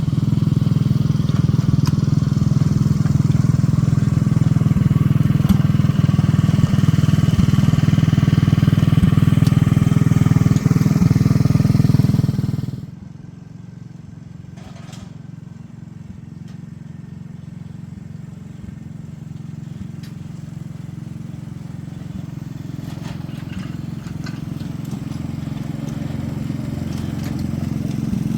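Small locomotive's engine running hard under load for about twelve seconds, then dropping suddenly to a much quieter, steady run that slowly grows louder again.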